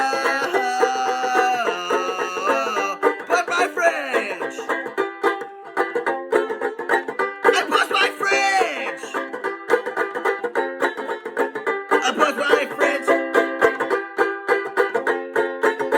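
Banjolele strummed fast in a folk-punk song, an instrumental stretch with quick, even strums.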